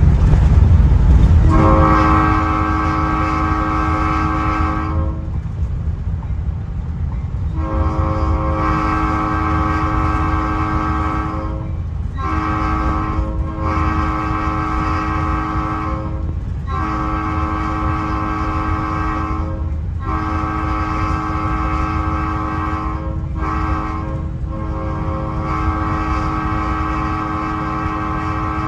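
Nathan AirChime P01235 five-chime locomotive air horn heard from inside the cab, blowing a full chord in the grade-crossing pattern: long, long, short, long, twice over. The locomotive's low rumble runs underneath.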